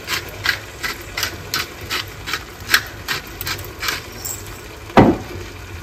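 Hand spice mill being twisted over the pan, giving an even clicking about three times a second, then a single heavy knock about five seconds in as something is set down.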